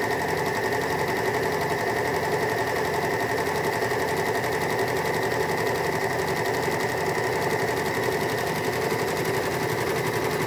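Janome 9300DX overlocker running steadily at speed, sewing a rolled hem, with a fast, even stitching rhythm.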